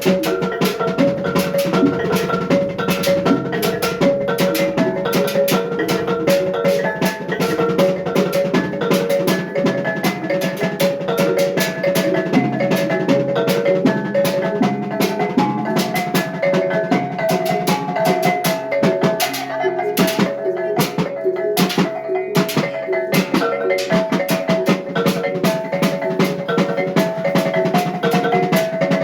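Maguindanao kulintang ensemble music: a fast melody rung on the kulintang's row of small tuned gongs over a dense, steady beat of drum and larger gongs.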